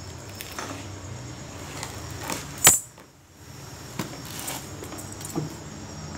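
A shrink-wrapped socket wrench set box being handled and turned: light taps and rustles with small clinks, and one sharp click a little before halfway.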